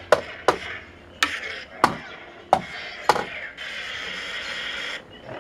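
Lightsaber soundboard (Crystal Focus v8 running the 'Fates' sound font) playing a string of six sharp clash sounds through the hilt's speaker, about two-thirds of a second apart, as the blade is swung. Near the end, a steady buzzing hiss for about a second and a half.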